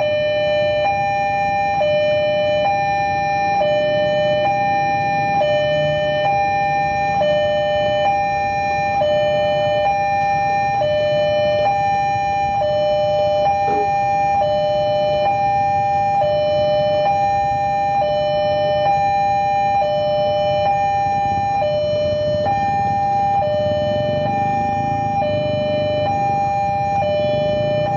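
Railway level-crossing warning alarm sounding continuously: an electronic two-tone ringing that alternates evenly about once a second, the signal that a train is coming. A low steady rumble sits underneath.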